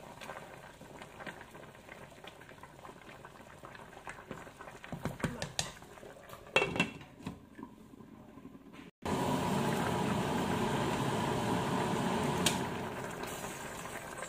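Pork ribs boiling in sauce in a steel pan, a steady bubbling and hiss, with a wooden spoon stirring and a few knocks of the spoon and glass lid on the pan about five to seven seconds in. After a sudden break about nine seconds in, the bubbling comes in louder and steady, easing slightly near the end.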